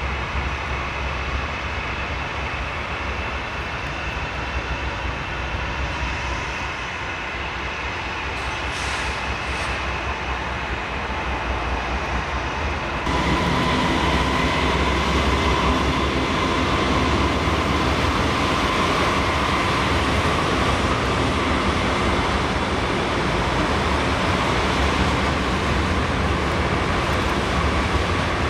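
Norfolk Southern diesel freight locomotives running as their train rolls past, with the rumble of the cars on the rails. About 13 seconds in the sound cuts abruptly to a louder passing train, with a steady high tone over the rumble.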